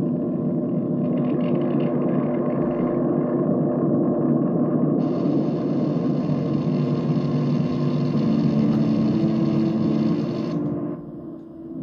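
Loud electrical droning hum built on steady low tones. A band of hiss switches on about halfway through and cuts off suddenly near the end.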